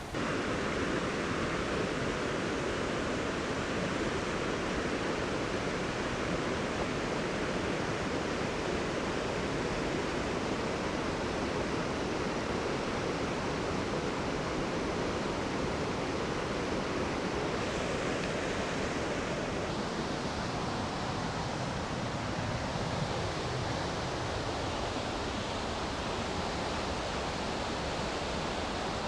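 Steady rushing of a rain-swollen river pouring over waterfalls, an even, unbroken noise of water in flood after heavy rain.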